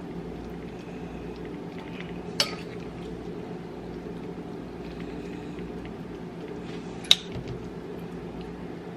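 Two sharp clinks of kitchen utensils against dishes, one about two seconds in and a louder one about seven seconds in, over a steady low background hum.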